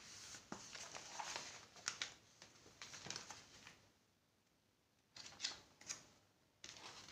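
Paperback workbook being handled: soft page rustling and a few light clicks and knocks as it is flipped shut and set aside, with a quiet pause in the middle.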